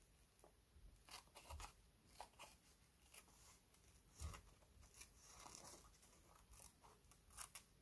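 Small scissors snipping through a book page: a string of short, faint cuts.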